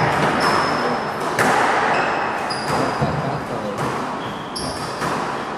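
Squash rally: the ball smacks off rackets and walls in sharp hits, while court shoes squeak in short, high chirps on the wooden floor.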